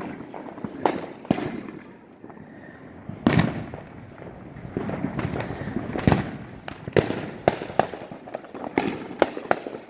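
Fireworks and firecrackers going off around the neighbourhood: a scattered run of sharp bangs and pops at uneven intervals, some echoing, with a short lull about two seconds in before they pick up again.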